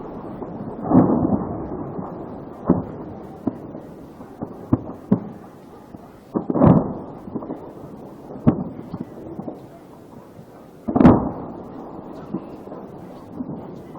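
Stored ammunition detonating in a burning depot: three heavy booms about five seconds apart, each rolling away, with sharper single cracks of smaller blasts in between.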